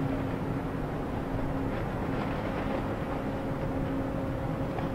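Steady drone of harbour tugs and a container ship's engines heard across the water, with a steady low hum running through it.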